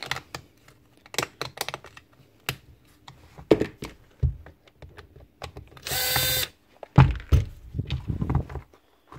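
Plastic casing of a cordless cattle clipper body being handled and unscrewed: scattered clicks and several heavy knocks, with a short whir of a small electric motor lasting under a second about six seconds in.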